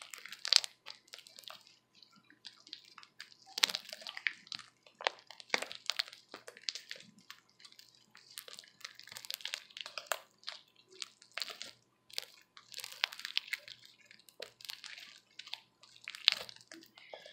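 Sticky glue-and-borax slime being kneaded by hand: an irregular stream of small wet clicks, pops and squelches.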